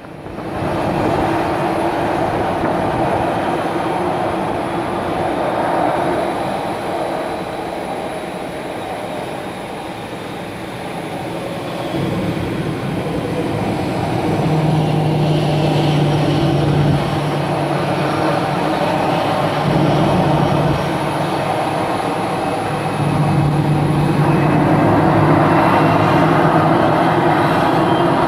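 Boeing 737-800's CFM56-7B turbofan engines running at taxi power: a steady jet rumble with a thin fan whine that rises in pitch near the end.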